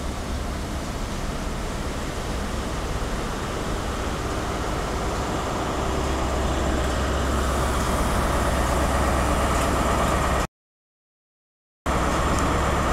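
InterCity 125 (HST) coaches rolling past on the rails in a steady rumble, with a low hum that grows louder from about halfway as the rear Class 43 diesel power car draws near. The sound drops out completely for about a second near the end, a recording break from the camera zooming.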